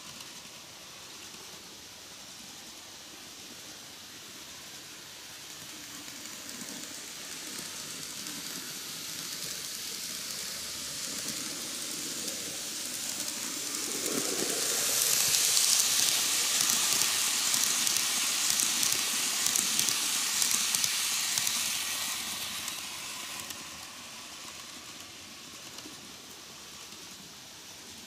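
KATO N-gauge D51 498 steam locomotive model pulling passenger coaches, running on the track: a thin, high-pitched mechanical hiss with fine rapid ticking that grows as the train approaches, is loudest as it passes close by from about halfway through, then fades away near the end.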